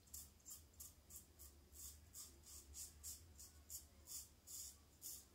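Faint scraping of a double-edge safety razor with a Gillette Rubie blade cutting through lathered stubble. It takes short, quick strokes, about four a second.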